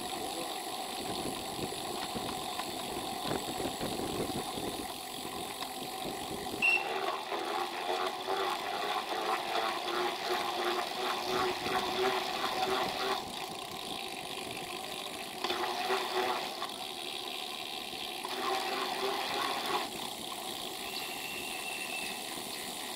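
Riding a Brompton folding bicycle: wind and road noise, then from about seven seconds in a rhythmic mechanical ticking rattle from the bike that comes and goes in three spells. A short high ring sounds about seven seconds in, and another near the end.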